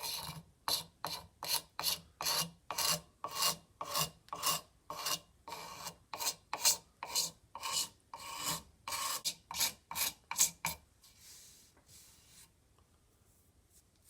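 Pocket knife blade scraping varnish off a wooden mallet handle in quick, even strokes, about two a second, stopping about eleven seconds in.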